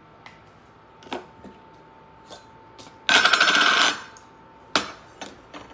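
A person takes a loud slurping sip of broth from a foam cup, lasting about a second, with a few small clicks of the cup and lips before and after.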